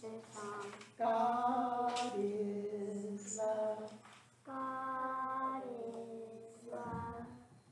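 A child's voice singing a slow Easter song in long held notes, phrase by phrase, with short breaths between phrases.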